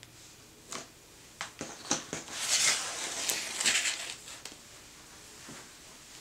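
A hardcover picture book being handled and closed: a few light taps, then the rustle and slide of paper and cover for a couple of seconds as the book is shut and turned over.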